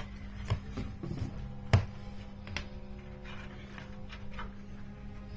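Faint background music over a low steady hum, with a few sharp plastic clicks and taps from cable connectors being handled and pushed onto motherboard headers, the loudest click about two seconds in.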